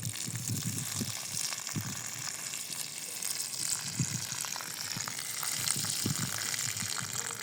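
Food frying in hot oil in a pan, a steady sizzle, with a few soft low knocks.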